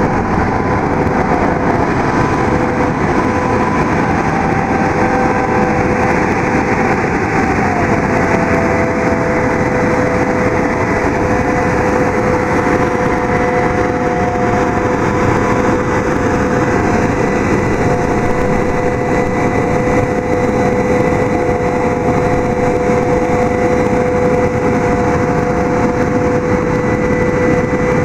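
CAT 660 water truck running, its engine driving the PTO-driven Berkeley water pump, with the steady rushing hiss of water blasting from the spray heads. A steady whine rides over it, stepping slightly in pitch a few times.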